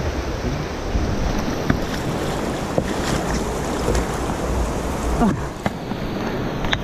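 Fast river water rushing around an inflatable kayak, with wind buffeting the microphone. A few light knocks sound through it.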